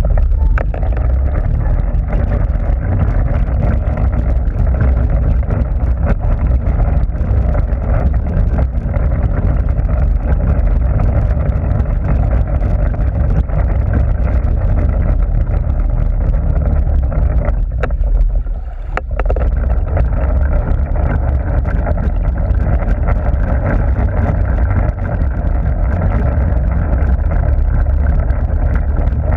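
Steady muffled underwater rumble and water noise picked up by a submerged camera, with a brief drop in level about two-thirds of the way through.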